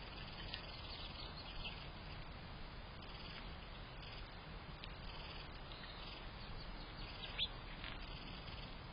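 Small songbirds chirping now and then over a steady background hiss, picked up by a bird-bath camera's microphone; the clearest is a short falling chirp about seven seconds in.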